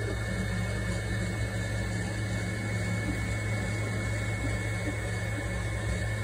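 A steady mechanical hum with a low drone and an even hiss, holding constant throughout.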